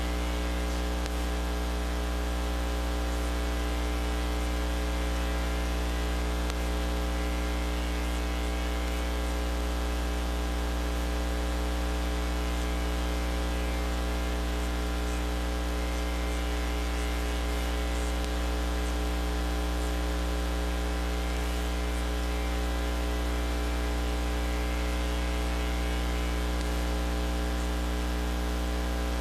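Steady electrical mains hum with a long stack of overtones over a layer of static hiss, unchanging throughout.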